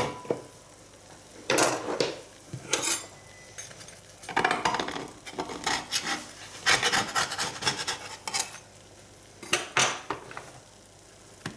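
A metal spatula scraping and prying freshly baked pizza sticks loose from a baking tray, in about six short scraping bursts.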